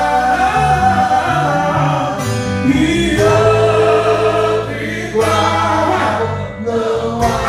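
A man singing a gospel worship song into a microphone, accompanied by his own strummed acoustic guitar and a band with a moving bass line, the voice holding long notes.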